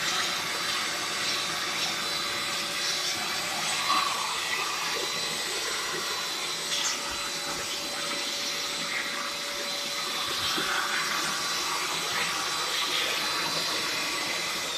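JML 800-watt turbo-powered hand vacuum cleaner running steadily: a rush of air with a constant high motor whine.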